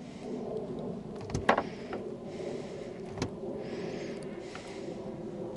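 A jig head and fishing line handled by hand: a few sharp clicks, the loudest about a second and a half in and another just after three seconds, over a steady low hum and hiss that comes and goes.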